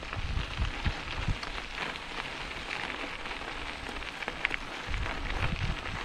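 Mountain bike climbing slowly up a dirt trail: tyres crackling over grit and small stones, with scattered clicks and irregular low thumps on the microphone.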